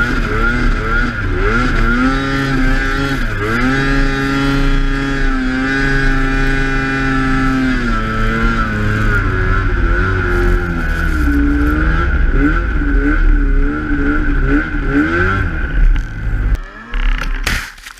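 Snowmobile engine running under throttle through deep snow, its pitch rising and falling as it speeds up and eases off, held steady for a few seconds in the middle. Near the end the engine drops away and a short, loud rush of noise follows.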